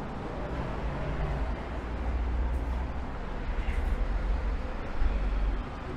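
Steady outdoor background noise: a low rumble and hiss with no distinct events.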